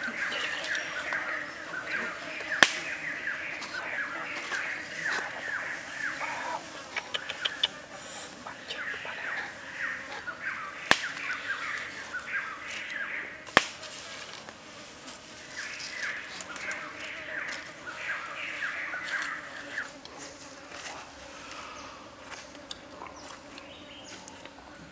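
Birds chirping in rapid runs of short falling notes, coming in several bursts, with three sharp cracks standing out above them.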